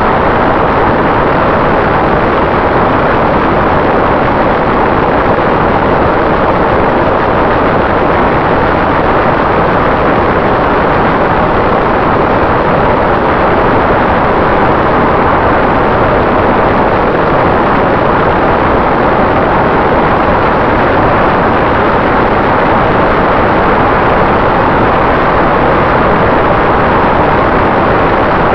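Loud, steady wind rush and propeller noise picked up by a camera mounted on a Durafly Tundra electric RC plane in flight, with a faint steady tone running under it.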